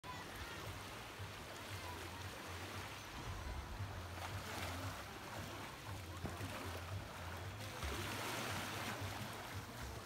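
Small waves of a calm sea lapping and washing at the shore: a steady wash of water that swells briefly about four seconds in and again for a second or two around eight seconds.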